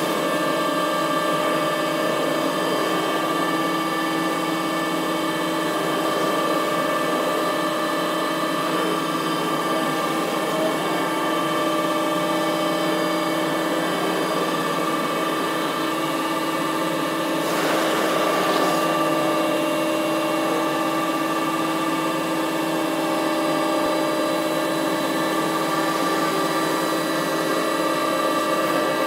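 CNC milling machine spindle running at a steady speed, its end mill shredding a head of lettuce, with a steady whine of several fixed tones over a rushing cutting noise. A louder rush of cutting noise comes about eighteen seconds in.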